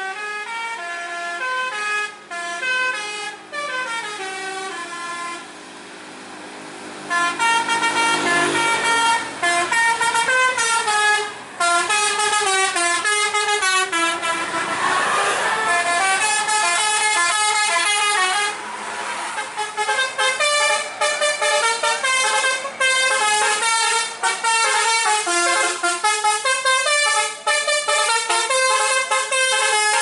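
Basuri "telolet" multi-tone bus horn playing quick melodic runs of stepped notes over and over. A louder rush of noise about halfway through.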